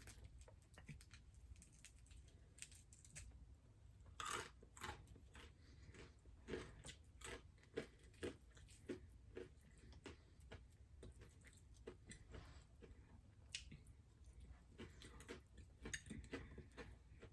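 A person quietly chewing and biting food close to the microphone, with short crunchy, wet spells about four seconds in, from about six to nine seconds, and again near the end.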